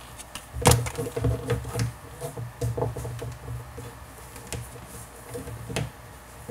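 Light, irregular clicks and knocks of small plastic toy pieces being handled: hair pieces being pressed onto an LOL Surprise doll, about half a dozen taps.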